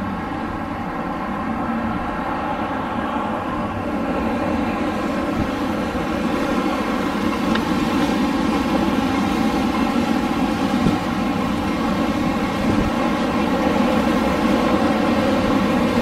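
Winter wind blowing steadily, slowly growing louder.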